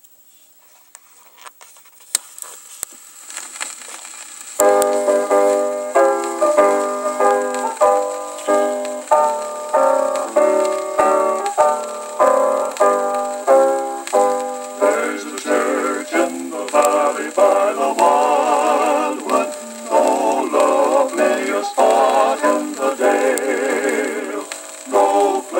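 A 1948 gospel quartet record playing on a turntable. First comes faint surface crackle and clicks from the run-in groove. A piano introduction begins about four and a half seconds in, and close-harmony quartet singing comes in around fifteen seconds in, thin and without bass.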